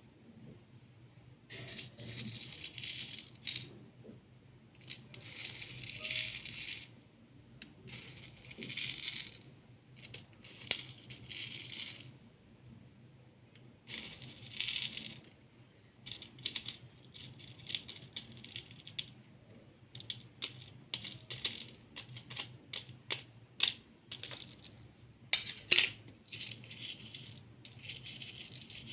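Loose beads rattling as they are handled, in repeated bursts of a second or two. In the second half this gives way to a run of shorter clicks and clatters, with one sharp click a few seconds before the end.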